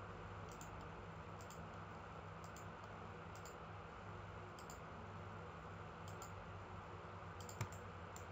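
Computer mouse clicking at irregular intervals of about a second, each click placing a support point, over a low steady hum; one click near the end is louder.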